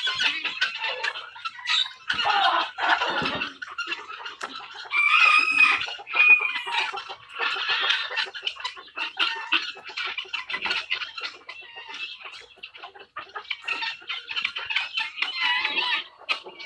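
A mixed poultry flock of guineafowl and chickens calling: a dense, overlapping chatter of clucks and cackles, with a louder, drawn-out call about five to six seconds in.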